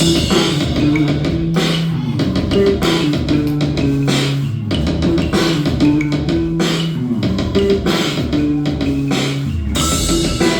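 Live rock band playing an instrumental passage: guitar and bass guitar over a drum kit with a steady beat.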